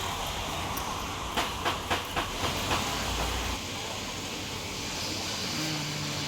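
Steady background noise of a busy food court, with a quick run of six sharp knocks, about three a second, in the first half. A low rumble under it stops a little past halfway.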